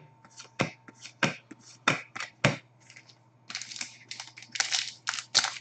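Upper Deck hockey trading cards being flipped through by hand. There are four sharp card snaps about two-thirds of a second apart, then denser rustling and sliding of the cards against each other from about three and a half seconds in.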